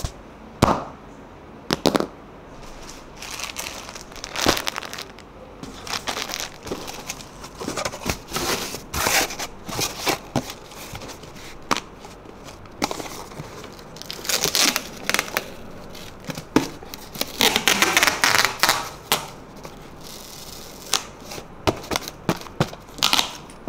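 A corrugated cardboard box being folded into shape by hand: irregular crackles and knocks as the flaps bend and crease, with longer rustling rubs of cardboard about two-thirds of the way through.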